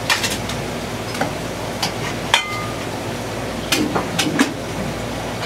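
Ceramic plates and utensils clinking and knocking on a steel kitchen counter as curry rice is plated: a string of sharp knocks, one about two seconds in ringing briefly, and a quick cluster near the end. A steady hiss of kitchen noise runs underneath.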